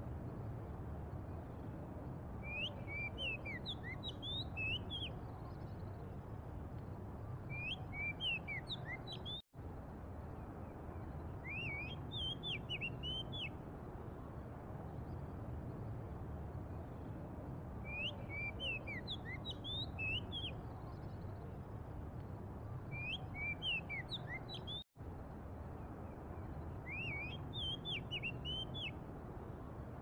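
Oriental magpie-robin singing: short phrases of clear, sliding whistled notes every few seconds over a steady low background rumble. The same stretch of song repeats about every 15 seconds, and the sound cuts out for an instant twice.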